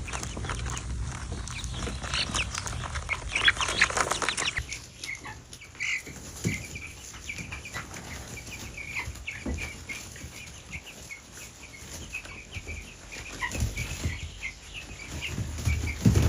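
Broiler chicks peeping, a long string of short high cheeps. For the first few seconds there is rustling and a run of sharp clicks.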